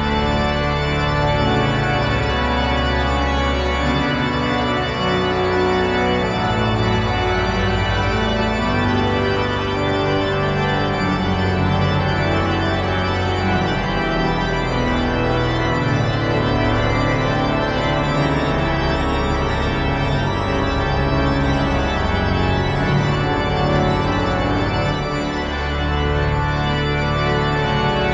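Organ music: dense sustained chords over deep held bass notes, the harmony shifting every few seconds.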